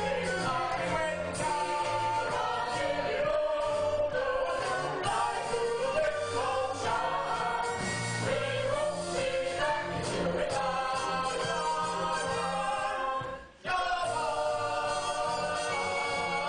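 A stage-musical song: a group of voices singing together over musical accompaniment. The music breaks off for a moment about three seconds before the end, then carries on.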